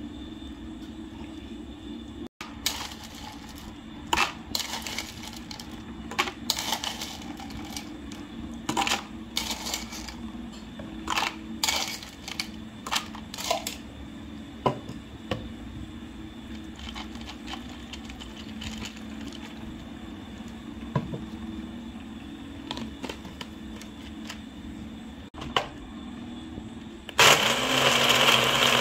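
A string of sharp kitchen knocks and clicks. Near the end an electric blender switches on and runs loudly, blending the kale drink.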